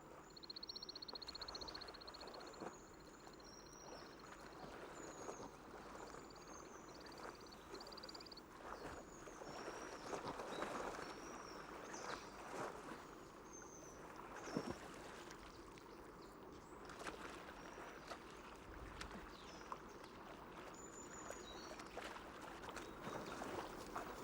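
Faint wild outdoor ambience: many short, high chirps and whistles from small birds, with a fast even trill in the first few seconds, over a low rushing noise like water and a few soft splashes.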